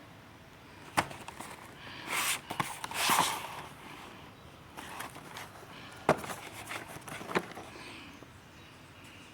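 Model kit boxes being handled: three sharp knocks as boxes are set down or tapped, about one, six and seven seconds in, and two short rustling scrapes of cardboard sliding around two to three seconds in.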